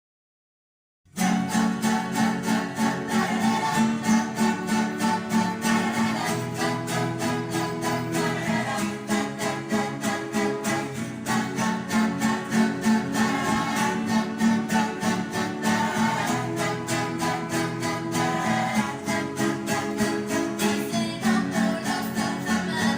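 A rondalla ensemble of strummed acoustic guitars starts playing about a second in, with a steady, upbeat strumming rhythm.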